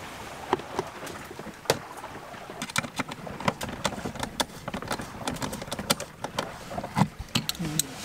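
Scattered, irregular clicks and knocks of a plastic-cased Victron SmartSolar MPPT 100/20 solar charge controller being pushed back into its mounting and fastened with a screwdriver, over a low steady hiss.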